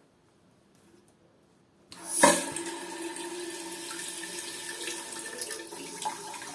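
Water starts rushing into the toilet cistern through a newly fitted fill valve about two seconds in, with a sharp surge at the start, then runs on steadily as the tank fills after the supply is turned on.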